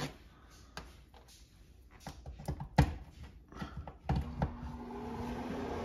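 A power cord rattles and a plug clicks into a wall outlet. About four seconds in, a food dehydrator's fan motor starts, with a steady hum and a faint rising whine as it spins up.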